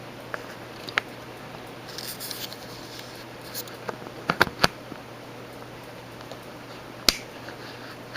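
1981 Four Seasons Classic 52-inch ceiling fan running on high, a steady hum and air noise with scattered sharp clicks, a clicking the owner calls typical of fans whose blades have been repainted.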